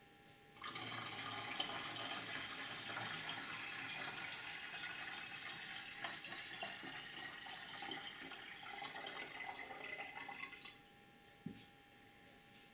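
Water poured from a glass jug into the top-fill water reservoir of a Lelit Elizabeth espresso machine, splashing steadily for about ten seconds before it stops. A light knock follows shortly after.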